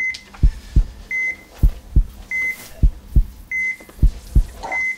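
Heart-monitor beep with a heartbeat's double thump, repeating steadily about once every 1.2 seconds: a short high beep, then two low thumps, signalling a steady pulse.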